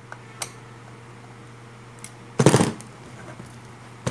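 Metal handling noise as a transformer core and a metal rod are moved about on a workbench: a few light clicks, then a louder clatter about two and a half seconds in, over a steady low hum.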